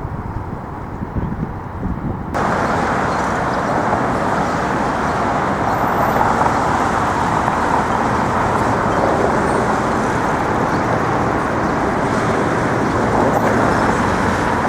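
Steady city traffic noise with a constant rush of air, with no distinct single event. It jumps abruptly louder and fuller about two seconds in and then stays steady.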